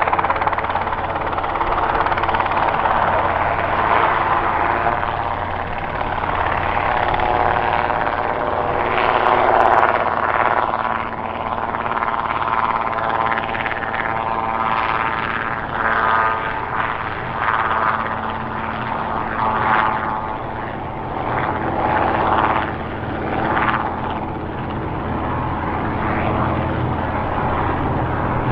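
Robinson R22 Beta II helicopter flying low and climbing away. Its two-blade main rotor beats over the steady drone of its four-cylinder Lycoming piston engine. In the second half the sound swells and dips every couple of seconds.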